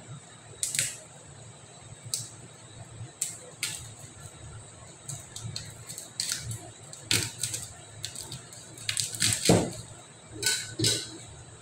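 Chinese cleaver slicing small onions and garlic cloves, its blade knocking on a cutting board in irregular sharp taps, some in quick runs. The loudest knock comes about nine and a half seconds in.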